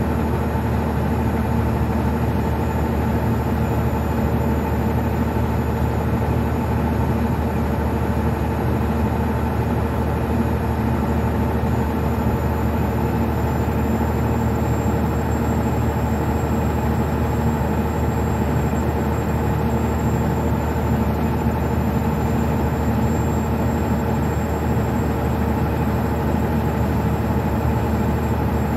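Old International semi-truck's diesel engine and drivetrain running steadily at highway cruise, heard from inside the cab as a constant low drone with road noise and a faint thin high whine.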